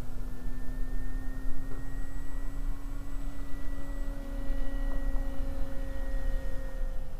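Model airplane's motor droning in flight as one steady tone that rises slightly in pitch, with a low rumble underneath.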